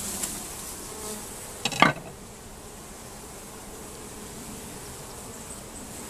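Carniolan honeybees buzzing steadily around an opened top-bar hive, with their comb lifted out. A single sharp knock about two seconds in.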